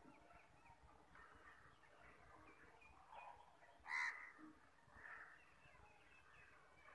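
Faint outdoor birdsong: small birds chirping quietly, with a crow cawing, loudest once about four seconds in.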